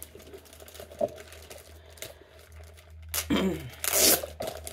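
Clear plastic wrapping on a rolled diamond painting canvas crinkling as hands work at it, then a short loud rip of the plastic about four seconds in.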